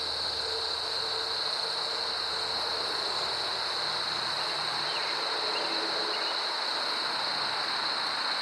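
Steady high-pitched insect chirring, like crickets, held at one pitch over a constant hiss.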